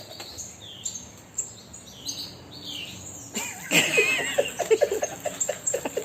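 Bird calling: short high chirps, then about halfway through a louder run of rapid, rhythmic, wavering calls.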